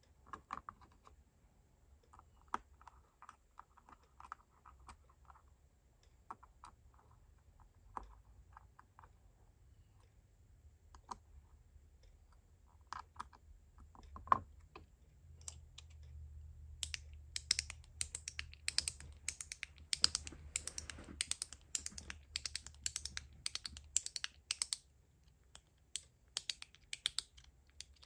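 Scattered small clicks and knocks of fidget parts being handled, then, about halfway through, a fast run of sharp clicks as a freshly assembled titanium and Ultem mechanical fidget with spring-and-ball detents is snapped back and forth; its action is a little stiff.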